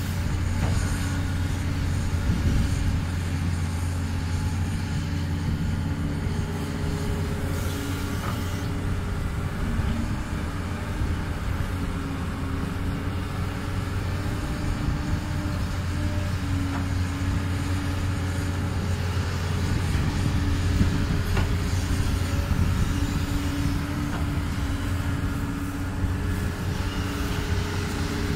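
A Doosan DX200 excavator's diesel engine running steadily under work, a low hum whose pitch shifts a little now and then.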